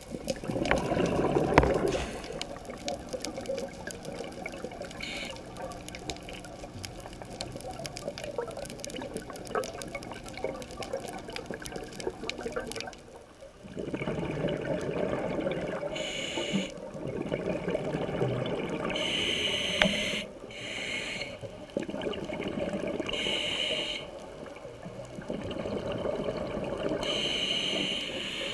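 Underwater camera audio of a scuba diver breathing through a regulator: a bubbly rush of exhaled air alternating with a short hiss of inhalation, about every four seconds, after a cut about halfway through.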